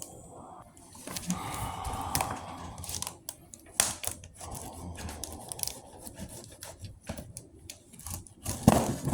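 Scissors cutting through the speaker's packaging: stretches of rasping, scraping cuts with scattered sharp clicks.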